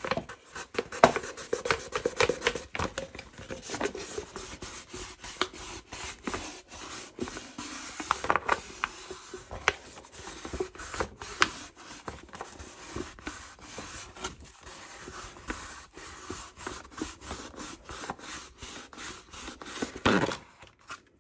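Wet sandpaper rubbing around the edge of a glass to smooth the rough cured epoxy, in quick, repeated scratchy strokes that stop about a second before the end.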